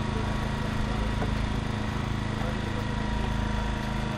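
Small petrol engine of a hydraulic rescue-tool power unit running steadily at a constant speed.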